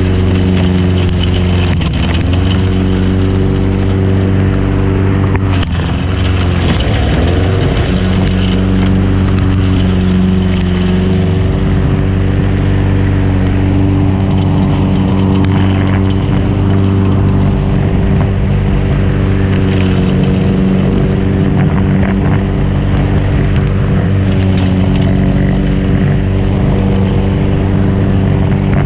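Briggs & Stratton engine of a Craftsman walk-behind mulching lawnmower running at full throttle, heard from beneath the cutting deck, with the rustle and crackle of Spanish moss being chopped by the mulching blades. The engine pitch dips briefly about two seconds in and sags again around six seconds in before recovering, as the blades take on the pile of moss.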